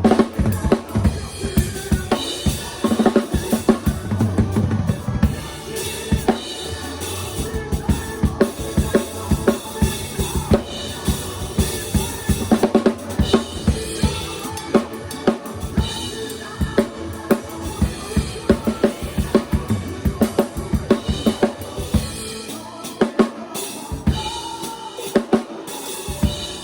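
Drum kit played live in a steady groove: kick drum, snare and cymbals hitting several times a second, with pitched instruments sounding underneath.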